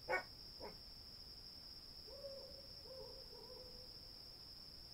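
Night ambience: crickets trilling steadily and high, with an owl hooting softly three times from about two seconds in. Two brief soft sounds come right at the start.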